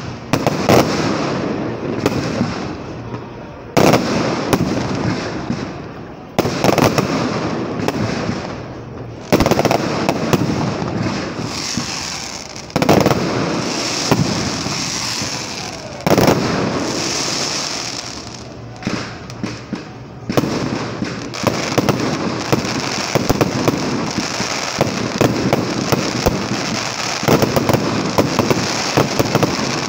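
Aerial fireworks shells bursting overhead, a sharp bang every three or four seconds, each trailing off in a long rolling echo. Past the two-thirds mark the bangs give way to a rapid string of crackling reports.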